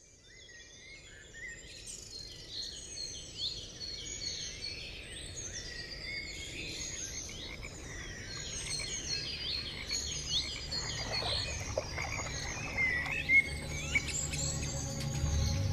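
Many birds chirping and calling at once, a dense outdoor chorus that fades in from silence at the start. A low steady hum swells in beneath them from about ten seconds in.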